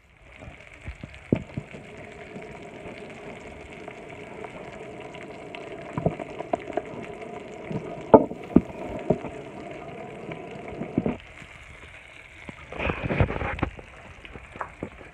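Food sizzling in a hot frying pan, a steady hiss with scattered spattering pops, which stops abruptly about eleven seconds in. A few louder knocks follow near the end.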